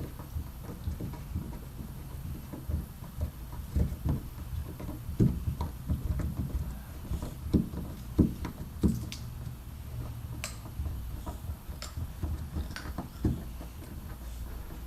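Handling noise from working the dent-puller tools: irregular low knocks and bumps over a low rumble, with a few sharp clicks in the second half.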